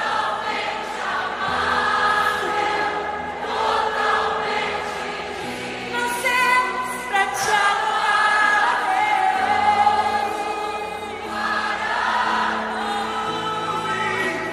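Live worship music: a band holds slow, sustained chords while a large crowd sings along, many voices together like a choir.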